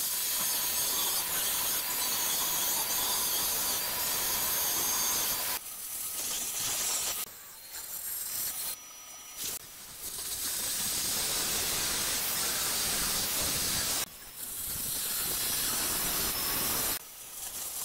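Angle grinder with an abrasive disc grinding ceramic tile and mortar along the edge of a countertop sink opening: a loud, hissing grind that stops briefly several times and starts again.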